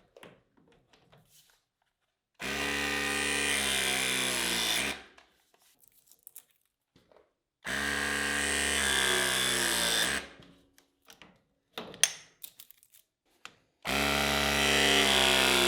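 Battery-powered pipe pressing tool crimping press fittings onto multilayer pipe: its motor runs three times, each run about two and a half seconds and cutting off sharply once the press cycle completes. There are light clicks of handling in between.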